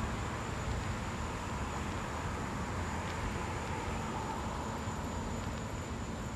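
Outdoor ambience: a steady, high-pitched insect drone over a low rumble.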